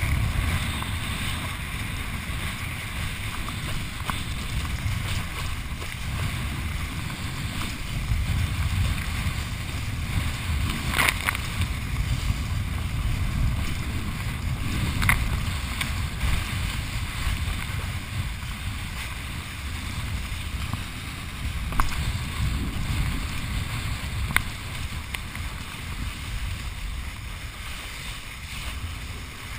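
Kiteboard skimming over choppy lake water with spray, under a steady low rumble of wind buffeting the microphone, with a few sharp slaps scattered through.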